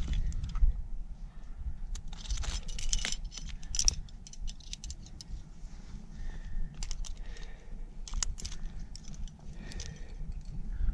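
Metal climbing gear on a trad rack, carabiners and protection, clinking and jingling in irregular clusters of sharp clicks as the climber moves, over a steady low rumble.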